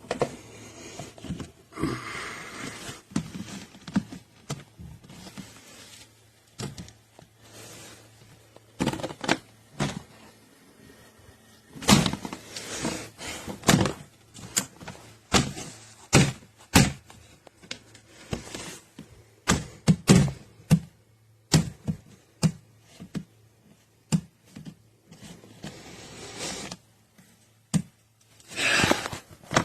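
Irregular knocks, clacks and short scrapes of hard plastic as an enclosed plastic cat litter box and its hood and clip latches are handled, with a longer scrape near the end.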